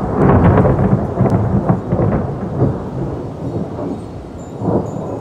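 Thunder rumbling loudly, strongest in the first couple of seconds, then slowly dying away, with a brief swell again near the end. Rain falls underneath.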